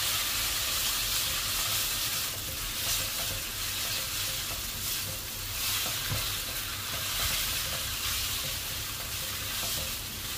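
Instant noodles with crabsticks and mixed vegetables sizzling in oil in a wok, a steady frying hiss. Chopsticks and a spatula stir and separate the noodles, adding the scrape of their strokes.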